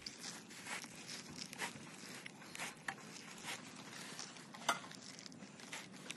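Gloved hands kneading and tossing minced beef with grated cheese and chopped peppers in a plastic bowl: soft, irregular rustling and squelching, several small sounds a second, with one sharper click about four and a half seconds in.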